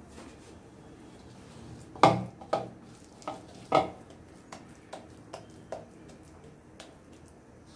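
Knocking and clinking of a utensil against a cooking pan: four sharp knocks about two to four seconds in, then lighter scattered taps.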